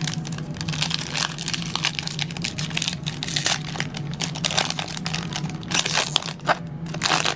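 Plastic wrapper crinkling and tearing in irregular crackles as a trading-card pack is opened by hand, over a steady low hum.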